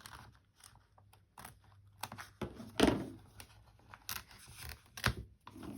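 Fabric and paper being handled and trimmed on a binder cover: irregular snips, crinkles and scrapes, with one louder crunch about three seconds in.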